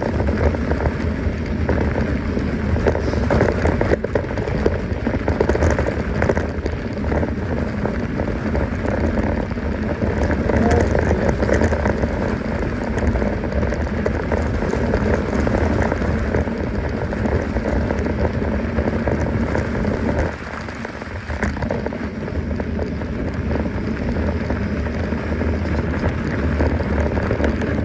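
Mountain bike rolling over a rough trail: a steady crackling rush of tyre noise and small rattles over a low rumble, briefly quieter about twenty seconds in.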